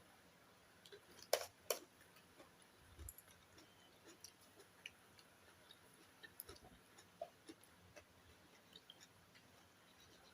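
Quiet eating: faint chewing and scattered small clicks, with two sharper clicks close together about a second and a half in.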